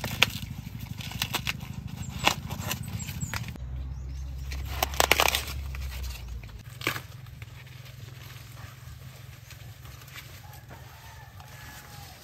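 Corn leaves and husks rustling and crackling, with several sharp snaps; the loudest cluster comes about five seconds in.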